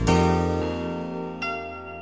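Music: a short intro jingle ends on a held chord that slowly fades, with a higher bright note joining about a second and a half in.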